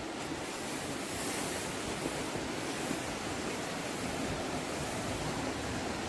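Steady rushing roar of the Tumpak Sewu waterfall heard from the path above it, an even wash of noise with no breaks.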